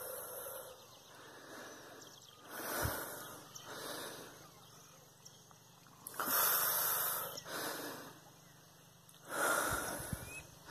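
A person breathing close to the microphone: noisy in-and-out breaths about every second or two, some in quick pairs and some louder than others.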